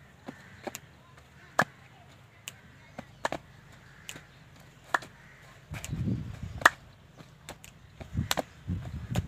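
Hand claps beating time for a Saraiki jhumar dance, a sharp clap about every second and a half to two seconds with lighter claps between. Muffled low rumbles come in about two-thirds of the way through and again near the end.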